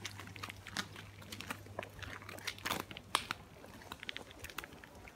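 Footsteps crunching and scuffing on a dry dirt-and-grit woodland path, an irregular patter of small crackles from several people walking. About four seconds in there is a quick run of high ticks.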